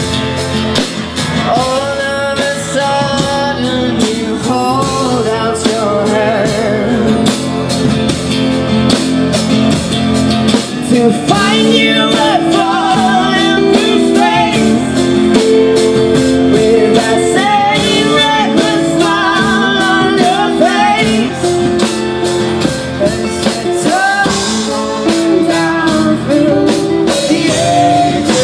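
Live band playing a song: a voice singing over strummed acoustic guitar, electric guitar and a drum kit with cymbals.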